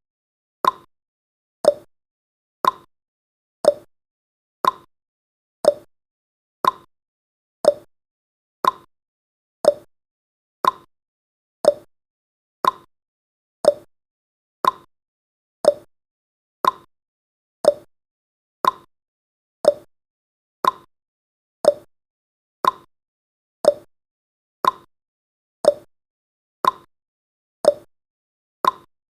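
Clock-ticking sound effect counting the seconds: a steady tick-tock, one sharp tick a second, alternating between a higher and a lower click.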